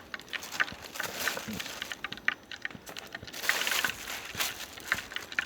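Hot oil crackling and popping as small horse mackerel fry as tempura, with rapid small pops and a steady sizzle that swells for about a second midway.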